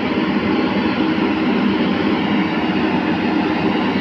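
Tata Hitachi EX210LC crawler excavator working with its bucket pressed against the road, its diesel engine and hydraulics making a loud, steady mechanical din.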